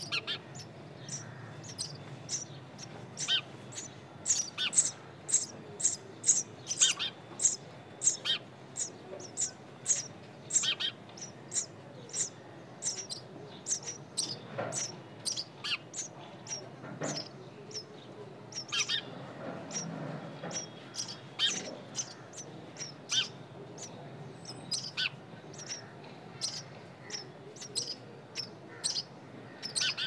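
Nestling songbirds calling in a steady run of short, high-pitched chirps, about two or three a second.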